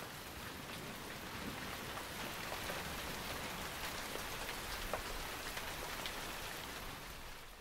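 Steady rain falling, with the odd sharper drop tick, fading out near the end.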